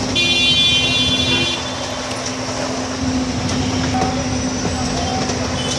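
The diesel engine of a backhoe loader runs steadily as it works on shack debris. For the first second and a half a high horn-like tone sounds over it.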